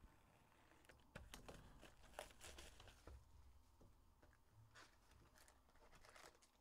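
Faint crinkling and tearing of the plastic shrink-wrap as it is slit and peeled off a sealed hockey card box, in scattered short crackles.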